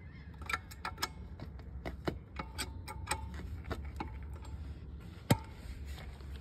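Hydraulic floor jack lifting the car: a series of irregular, sharp metallic clicks and ticks with a short ringing note, then one much louder clack about five seconds in.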